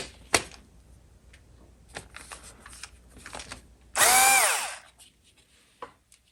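Small clicks and knocks of parts being handled. About four seconds in, a cordless drill-driver runs for just under a second, its whine falling in pitch as it winds down, loosening a screw.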